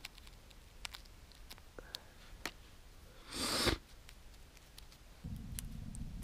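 Small clicks and rustles of a first-aid dressing being handled and wrapped onto a hand, with one short loud rasp about three and a half seconds in. Near the end a steady low rumble starts.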